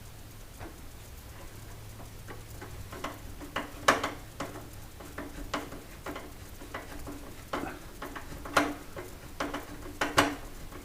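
Irregular sharp clicks and light knocks of metal parts and hand tools being handled while a refrigerator's condensing unit is worked back into place. They are sparse at first and come thicker and louder from about three and a half seconds in.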